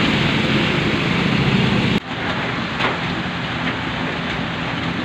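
Motorbikes running through floodwater in heavy rain, their engines and splashing tyres over the hiss of the rain. About two seconds in, the sound cuts to steady rain with slow car traffic on a flooded road.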